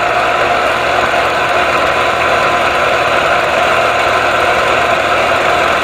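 Film projector running: a steady mechanical whir, constant throughout.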